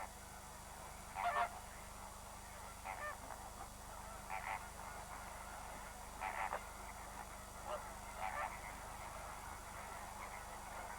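Greater flamingos calling with goose-like honks, short separate calls coming every second or two over a faint steady background.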